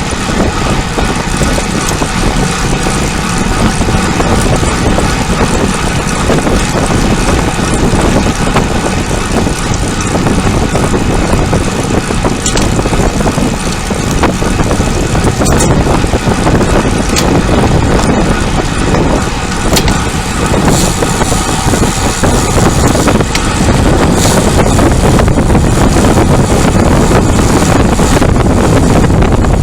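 Steady wind rush over the microphone with road noise from a bicycle on the move, louder in the last few seconds.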